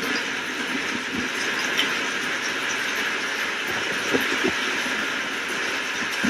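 Steady heavy rain, with a few short low thuds.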